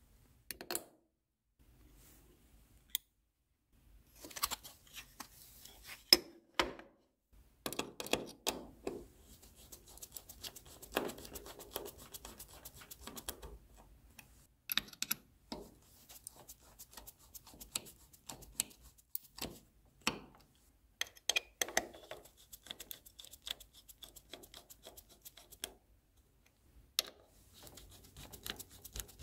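Clicks, taps and light scraping of parts being handled as an Nvidia Quadro NVS 295 graphics card is reassembled, with a run of fast, close ticks about ten seconds in.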